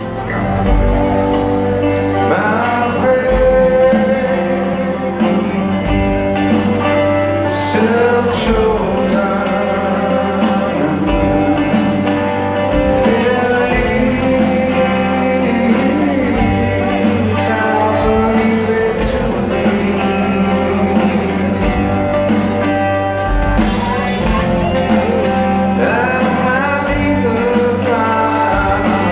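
Live rock band playing a slow song in a large hall: electric guitars, bass and drums, with a singer, recorded from within the audience.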